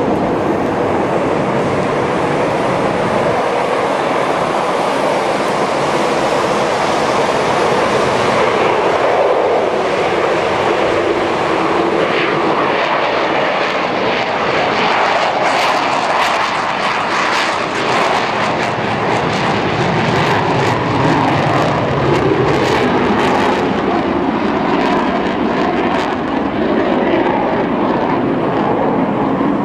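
F-15 Eagle fighter jet's twin turbofan engines at takeoff power through the takeoff roll and lift-off: a loud, steady jet roar, with a run of sharp crackles through the middle stretch as it goes by.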